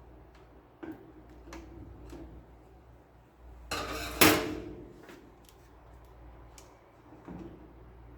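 Hard objects being handled: scattered light clicks and taps, with a louder clatter about four seconds in that ends in one sharp knock.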